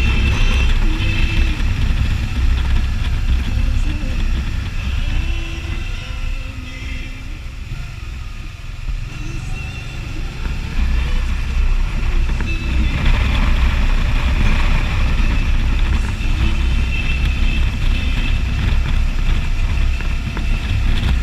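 Can-Am Spyder three-wheeled motorcycle under way, its engine and road noise running steadily. It drops quieter for a few seconds around the middle, then picks back up.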